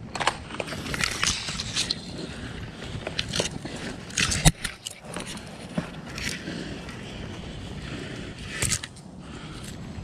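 Leafy tree branches rustling and crackling as they are grabbed and pushed aside, with scattered snaps and knocks; the sharpest, loudest knock comes about halfway through.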